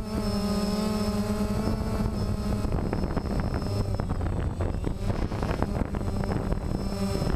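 DJI Phantom quadcopter's motors and propellers whirring steadily, heard from the GoPro camera mounted on the drone. After about two and a half seconds the steady hum turns rougher, with crackling wind buffeting on the microphone as the drone climbs.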